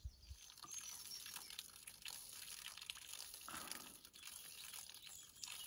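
Faint trickling and dripping of spring water: a soft, even hiss with many small ticks.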